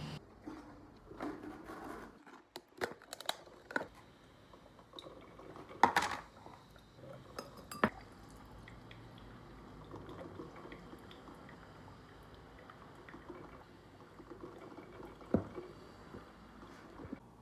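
Water poured from a glass electric kettle into a drinking glass, with several sharp clinks of glass and dishes, the loudest about 6, 8 and 15 seconds in.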